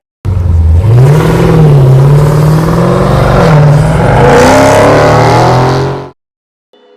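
Car engine revving, loud: it starts suddenly, the pitch climbs about a second in and then rises and falls a few times, and it cuts off abruptly near the end.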